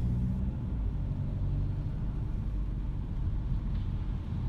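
Low, steady engine and road rumble heard inside a car's cabin while driving at about 30–40 km/h on a wet street.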